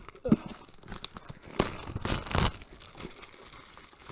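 Packaging being torn open and crinkled by hand, with a few sharp clicks early and a loud run of tearing and rustling in the middle.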